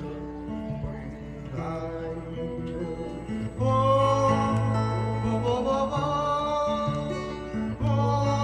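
Music with a guitar accompaniment. A singing voice comes in louder about three and a half seconds in, holding wavering notes over steady bass notes.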